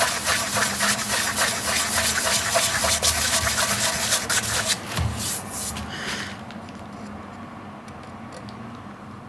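Hand sanding a bass guitar body with 600-grit paper on a small block: quick repeated rubbing strokes that stop about six seconds in.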